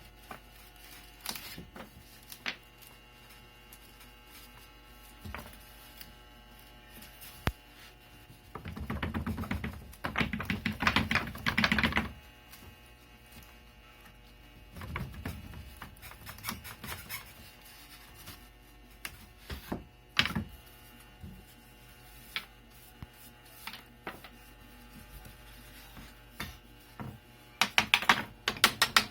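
Carved wooden monogram pieces being handled and freed from the CNC-cut stock: scattered clicks and knocks, with a stretch of rapid clicking about a third of the way in and again near the end.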